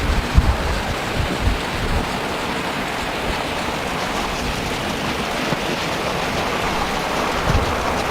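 Heavy rain pouring as a steady rushing hiss, with low thumps in the first two seconds and again near the end.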